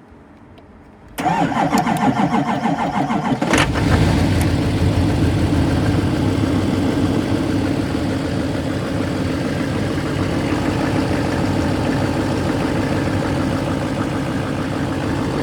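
2008 LMM Duramax 6.6-litre V8 turbo-diesel, started by jumping the starter relay to get round a no-crank fault: the starter cranks for about two and a half seconds, then the engine catches and settles into a steady idle.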